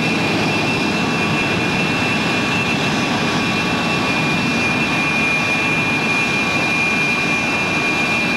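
Turbojet engines of taxiing military jets, a two-seat North American F-100F Super Sabre and a T-33 jet trainer, running at taxi power. A steady high whine sits over a continuous rumble, without change.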